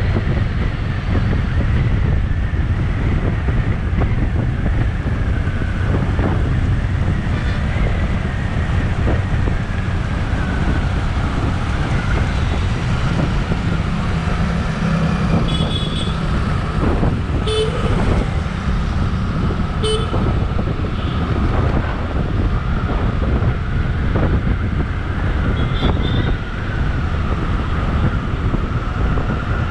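Motorcycle riding in traffic: a constant low wind rumble on the microphone over the running engine. A few short vehicle-horn toots sound around the middle and once more later on.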